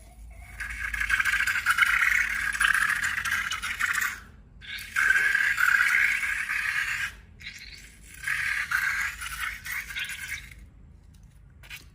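A rattling, scraping sound in three spells of two to four seconds each, with short pauses between them.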